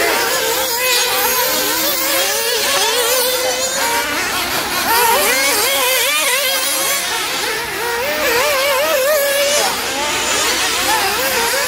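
Several nitro RC off-road cars racing, their small glow engines buzzing high and revving up and down as they accelerate and brake around the track.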